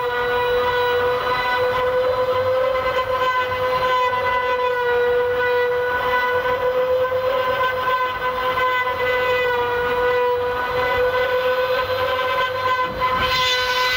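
Multi-spindle CNC wood router, several trim-router spindles cutting into wooden boards at once: a steady high whine with a hiss of cutting. The cutting hiss grows louder near the end.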